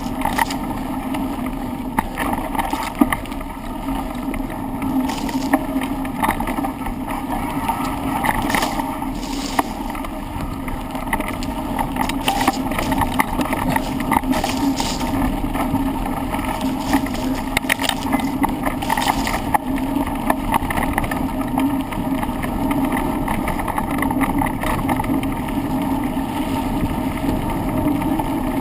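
Bicycle ridden fast down a trail, heard from a handlebar-mounted camera: a steady rushing rumble with frequent knocks and rattles from bumps throughout.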